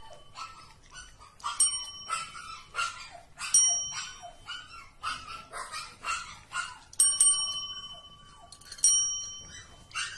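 Two desk call bells struck again and again by kittens pressing the plungers: several bright dings that ring on, one held longer about seven seconds in. Short high kitten mews come between the rings.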